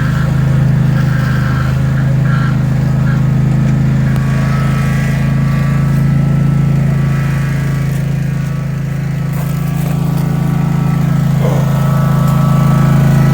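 Small zero-turn riding mower's engine running steadily under way, a constant hum that eases a little about two-thirds of the way through.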